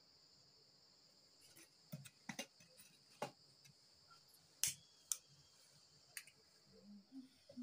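Steady high-pitched chirring of crickets, with a few sharp clicks and knocks as sticks of firewood are laid on a clay hearth and a fire is lit.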